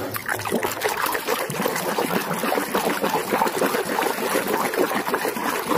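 Water sloshing and splashing in a plastic tub as a hand rapidly swishes a toy lizard back and forth to wash off the mud, a continuous busy splashing.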